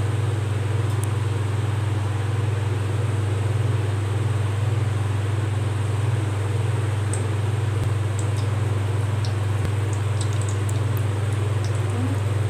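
Steady low hum, the loudest sound, over a soft even sizzle of semolina gulab jamun dough balls frying in hot oil, with a few faint ticks from the oil.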